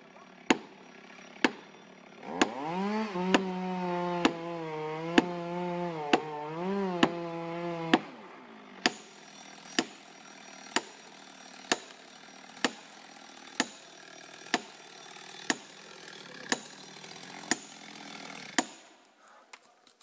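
Sharp hammer strikes about once a second at the base of a large tree being felled, typical of driving felling wedges into the back cut. A chainsaw revs up about two seconds in and runs at high speed for about five seconds, then stops.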